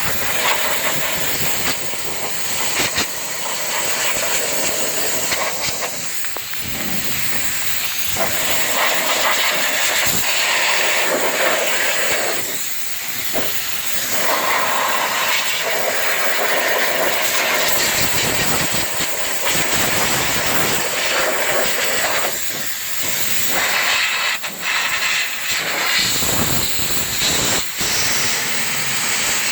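Nitrogen hissing from a hose nozzle, blown in uneven bursts into a condensing unit's electrical compartment and contactor to clear out bugs.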